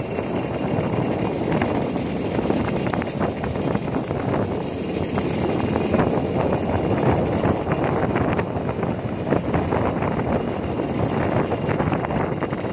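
Motorcycle running at riding speed, heard from the rider's seat, with a steady rush of wind on the microphone.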